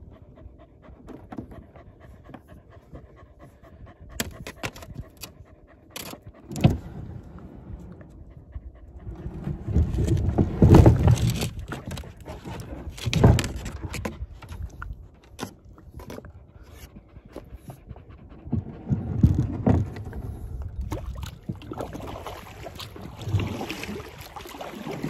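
Dog panting close by, with scattered clicks and a few louder thumps and scrapes.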